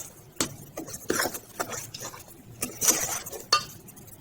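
Spatula folding flour into thick cake batter in a mixing bowl: irregular soft scrapes and taps against the bowl, with a wet squish of batter.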